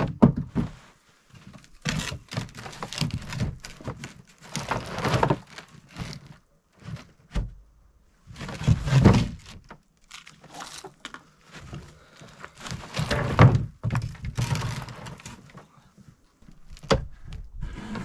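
Dry, rotten wooden boards knocking and clattering against one another as they are stacked onto a loaded plastic sled, in irregular runs of thunks and scrapes, loudest twice around the middle.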